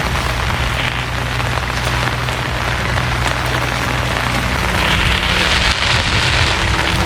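Heavy rain falling, a dense steady hiss.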